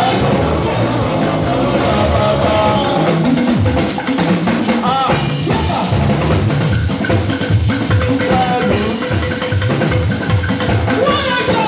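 Live band music: a drum kit keeps a steady beat under keyboard, with a voice singing briefly now and then.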